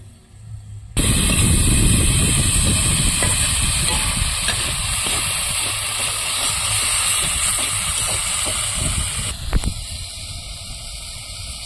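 Mango pieces frying in oil in a metal kadai: a steady sizzle that starts suddenly about a second in and drops away near the end.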